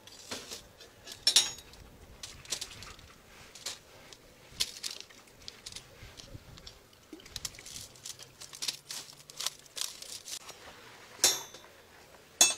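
Scattered crackles, scrapes and taps of a bread loaf being handled and torn on a foil-lined plate, then two sharp metal clinks near the end from the steel wire stand being handled.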